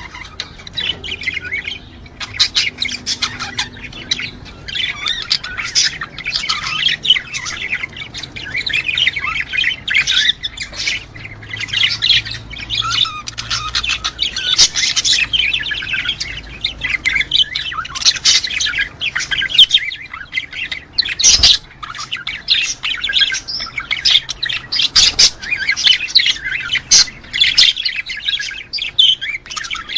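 Budgerigar chatter: a dense, unbroken run of rapid chirps, warbles and squawks, the calls played to bring budgies into breeding condition. A single sharp click sounds about two-thirds of the way through.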